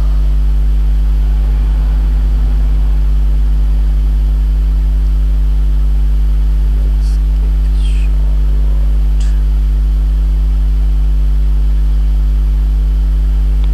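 A steady low electrical hum with several fainter steady tones above it, and a few faint, short high chirps about seven to nine seconds in.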